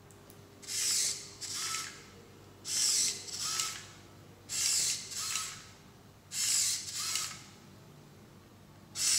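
Hobby servo motors in a 3D-printed robotic hand whirring as the fingers close and open, in pairs of short buzzing whirs about every two seconds, each ending in a brief high tone as the servos stop.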